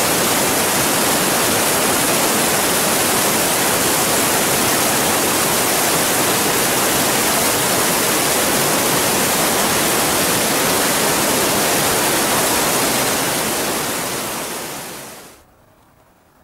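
Waterfall spilling down rock in a narrow gorge: a steady, even rush of falling water that fades out over the last three seconds or so.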